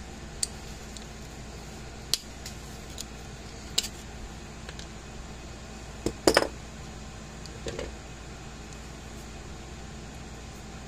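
A handful of light clicks and taps from needle-nose pliers and a circuit board being handled and set down on a wooden workbench. The loudest is a short clatter of a couple of knocks about six seconds in, over a steady low hum.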